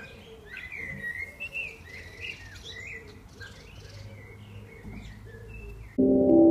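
Small birds chirping and singing, a quick string of short gliding notes. About six seconds in, louder music with chime-like notes starts suddenly.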